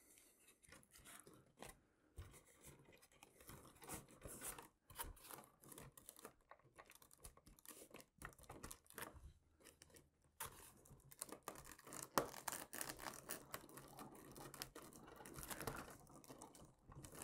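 Faint, scattered scraping, rubbing and small clicks of hands fitting foam model-airplane parts together, as the two halves of the horizontal stabilizer are pushed together over their spar. One sharper click comes about twelve seconds in.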